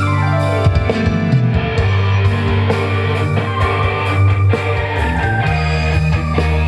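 Dangdut music with electric guitar and heavy bass played loud through a Bismarck BSX 12W12 active speaker with a 12-inch driver in a wooden cabinet, during a sound check. A falling glide in pitch runs through the first second.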